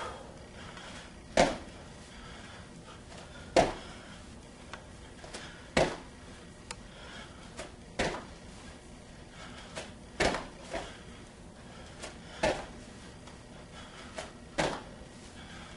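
Bare feet landing on a padded gym mat after squat jumps: a sharp thud about every two seconds, seven in all, with fainter knocks and shuffles between landings.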